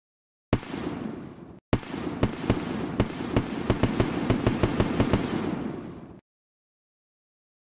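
Crackling and popping sound effect: a short burst of crackle that dies away, then about four and a half seconds of crackle with sharp pops a few times a second, fading before it cuts off to dead silence.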